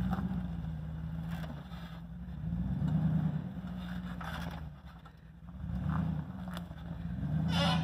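A lifted Jeep Grand Cherokee's engine is rock-crawling at low speed, with the revs swelling and easing about four times as the driver feeds throttle over the boulders. Brief scraping noises come about four seconds in and again near the end.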